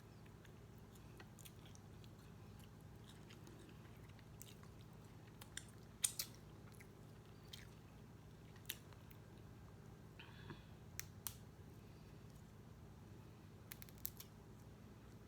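Close-miked eating: scattered wet mouth clicks and smacks of chewing, with one short crunchy patch about ten seconds in, over a faint steady hum.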